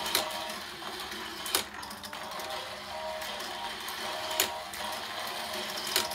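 Battery-powered toy airplane ramp set running: a steady motorized whirr and the rattle of small plastic planes rolling down the plastic track. Four sharp clacks come a second or more apart as the planes knock onto and along the track.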